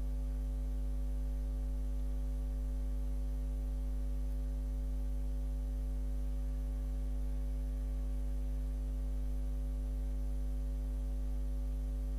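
Steady electrical mains hum with a buzzing stack of overtones, unchanging throughout.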